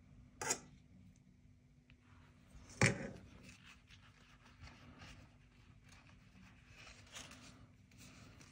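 Two sharp knocks of a metal spoon about two seconds apart, the second louder, as filling is scooped onto the pastry, then soft rustling and light scraping of thin samosa pastry sheets being folded by hand on the counter.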